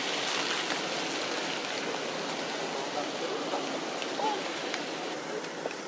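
Steady hiss of rain falling on tree foliage.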